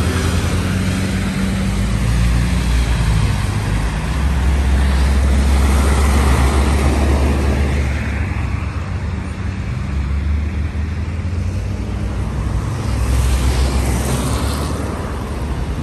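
Road traffic: a steady low engine rumble with vehicles passing by, swelling louder about four seconds in and again near the end.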